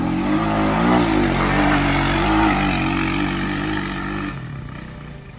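Honda Rubicon 520 ATV's single-cylinder engine revving hard under load up a steep dirt hill climb in two-wheel drive high range, its pitch wavering as the tyres throw dirt. About four seconds in the throttle comes off and the engine sound drops away.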